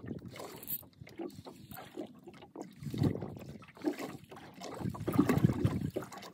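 Uneven low rumbling and sloshing of water around a small fishing boat, swelling about three seconds in and loudest near the end.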